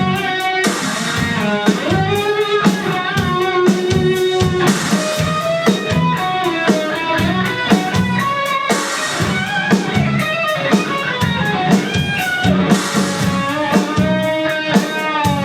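Live rock band playing: electric guitar carrying a melody over a steady drum-kit beat and bass.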